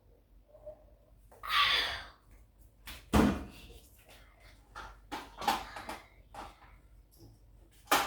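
A series of knocks, clacks and short rustles from objects being handled and set down, with the loudest knock a little after three seconds in.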